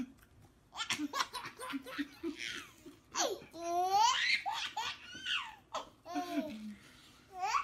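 A baby laughing hard in repeated bursts of high-pitched giggles.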